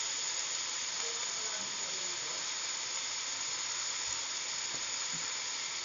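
Chicken giblets and feet being sautéed in a hot wok, sizzling with a steady, even hiss.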